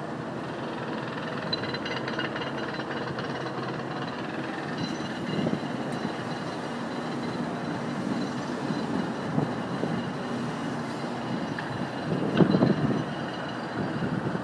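Steady urban traffic rumble from the city below, with a louder swell about twelve seconds in.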